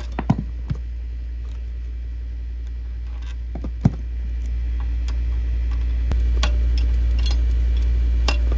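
A steady low hum with a few sharp clicks and light knocks, the hum growing a little louder about halfway through.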